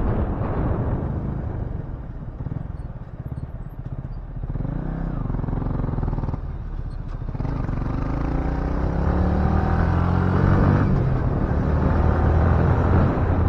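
Yamaha R15 V3 motorcycle engine running under way, its pitch climbing twice as the bike accelerates, over steady riding noise.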